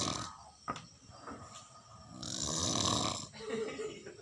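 A sleeping person snoring really loudly. One long snore dies away just after the start and a brief click follows; another long snore comes about two seconds in and lasts about a second, followed by quieter breathing.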